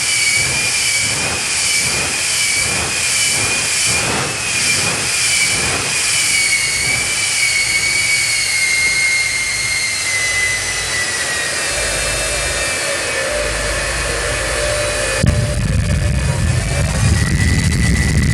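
Tornado wind roaring with a high, wavering whistle over a rush of noise, pulsing in gusts for the first several seconds. About fifteen seconds in, a deeper low rumble takes over.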